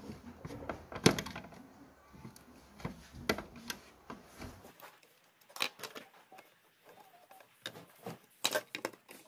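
Screwdriver working screws in the plastic cabinet of a Toshiba RT-SX26 cassette player: scattered clicks and knocks of metal on hard plastic, the loudest about a second in. Near the end, a quick run of clicks as needle-nose pliers pick at the cabinet's edge.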